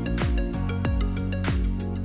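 Background music with a steady beat: a kick drum about twice a second under sustained chords.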